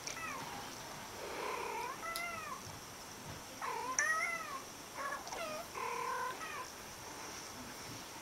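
Two cats meowing back and forth, played from a video through a speaker: about six short calls that rise and fall in pitch, some with a chirping lilt.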